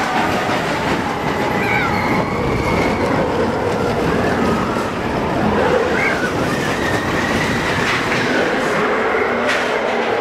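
Expedition Everest roller coaster train running fast on its steel track, heard from on board: a steady loud rumble and rush of the wheels, with a high wheel squeal coming in at times.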